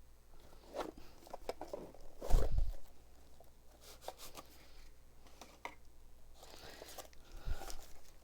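Pokémon card packaging being torn open and handled: scattered tearing and scraping noises, with a heavy thump about two seconds in and a softer one near the end.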